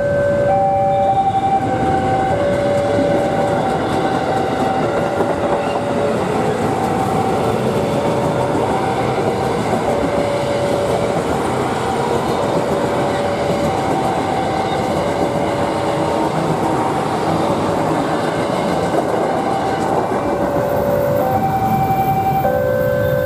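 A heavy vehicle's steady loud rumble while a horn sounds a tune of held notes, stepping up and down in pitch throughout.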